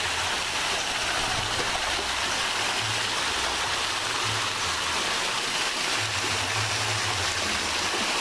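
Steady rushing, splashing water, with a faint low hum that comes and goes underneath.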